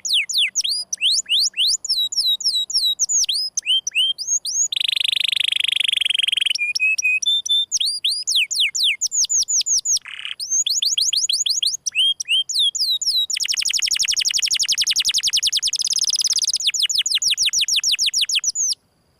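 Domestic canary singing in the 'gesekan' style: quick runs of downward-sweeping whistled notes, broken twice by dense buzzing rolls, with a brief break near the end.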